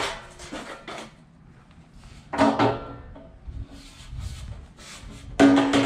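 Corrugated aluminium hurricane shutter panels clattering and rattling as they are lifted off their mounting bolts and handled against the wall. There are three clanks, at the start, about two and a half seconds in and, loudest, near the end, each with a short metallic ring.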